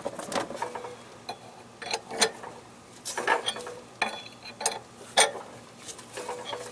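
Wrench working the centre bolt of a harmonic balancer puller on a 2.3 L crankshaft hub, giving irregular metal clicks and clinks.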